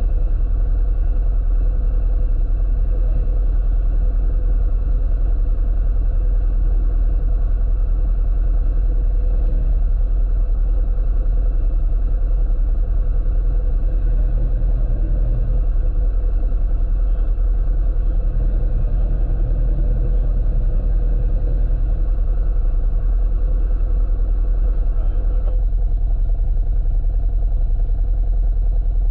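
Off-road vehicle engine running steadily under way on a trail, with a heavy, constant low rumble. Near the end some of the higher part of the sound drops away suddenly.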